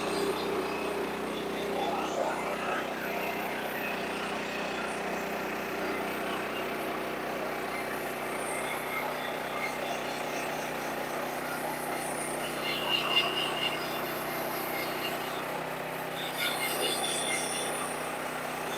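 Sawmill's engine running steadily, with a short louder burst of sharper, higher noise about two-thirds of the way through.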